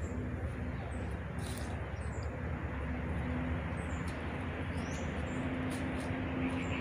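A few short, high bird chirps over a steady low rumble with a faint hum.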